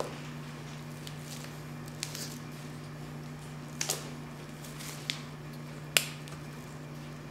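A steady low hum with about five short, sharp clicks or taps scattered through it, the loudest near the end.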